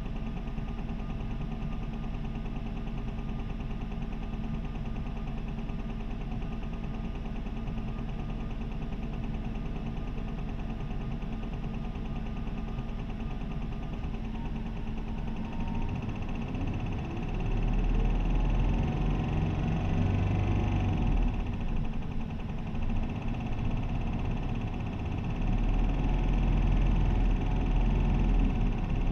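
Isuzu 2DG-LV290N3 city bus's four-cylinder diesel engine, heard from inside the cabin. It idles steadily for about the first half, then revs up and gets louder as the bus pulls away and accelerates, its pitch rising through the gears.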